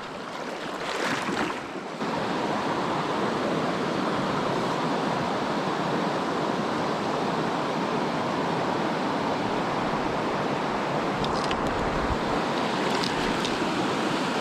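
Steady rushing of river water flowing over boulders, stepping up louder about two seconds in.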